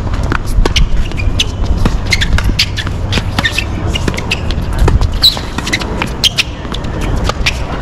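Doubles tennis rally on a hard court: sharp racket-on-ball hits and quick footsteps, with shoes scuffing and squeaking on the court surface, over a steady low rumble.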